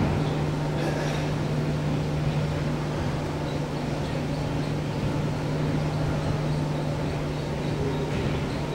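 Steady low hum over a constant rushing background noise, the ventilation drone of a large gymnasium, with a couple of faint sharper sounds from the volleyball play around a second in and near the end.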